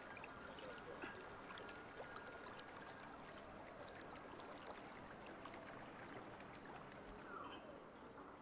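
Faint water lapping and trickling around a small, slow-moving electric boat, with scattered light drips and ticks over a quiet background.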